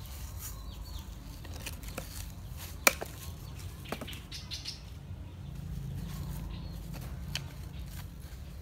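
A few sharp clicks and taps as plastic seasoning jars are opened and a spoon knocks against a stainless steel mixing bowl, the loudest about three seconds in, over a steady low outdoor background.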